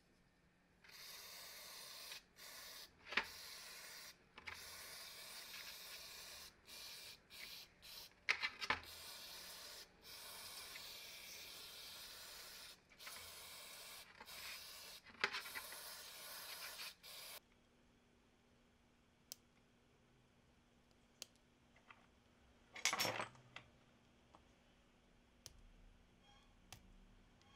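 Aerosol spray can with a straw nozzle hissing in a series of bursts with short pauses between them, for about sixteen seconds, then stopping. A short clatter about twenty-three seconds in, and a few small clicks near the end.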